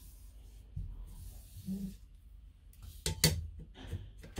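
Handling noise from a motorhome's sliding window and its opening bar: faint rubbing, then a quick cluster of sharp clicks and knocks about three seconds in.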